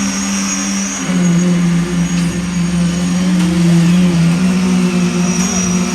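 A machine motor running steadily on a concrete-pouring job, giving a strong, even hum that wavers slightly in pitch.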